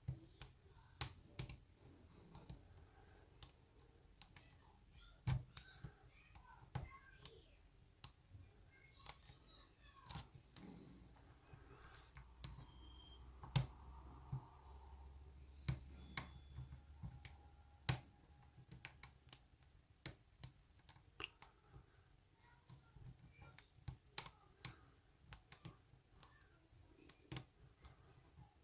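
Small, irregular metallic clicks and taps of a hook pick and tension tool working inside a Bi-Lock oval padlock being picked, some clicks sharper than others.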